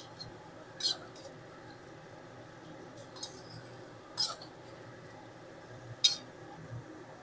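A cooking utensil scraping and knocking against a kadai a few times as a jackfruit curry, just thinned with water, is stirred.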